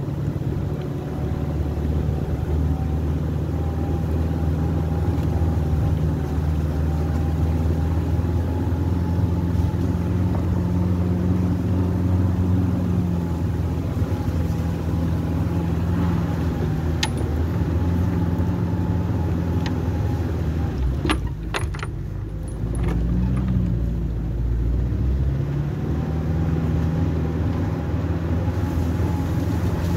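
Small petrol engine running steadily. About twenty-one seconds in, its note dips and wavers amid a few sharp clicks, then settles back to a steady run.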